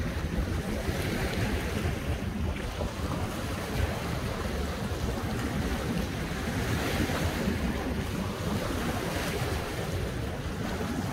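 Sea surf washing against a rocky shore, the hiss swelling every few seconds, with wind rumbling on the microphone.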